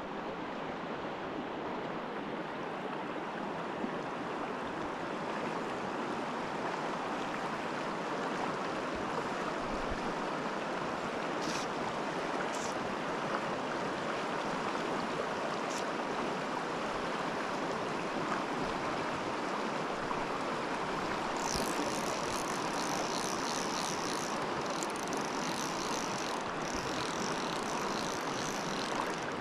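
Steady rushing of a river flowing over a rocky riffle. From about two-thirds of the way through, a high, pulsing chirp sounds above the water.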